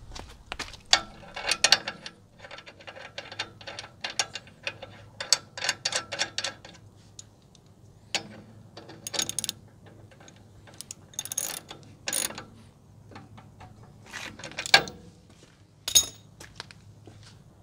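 Socket ratchet clicking in quick bursts as the engine block's coolant drain plug is screwed back in after draining, with a couple of sharp metal knocks near the end.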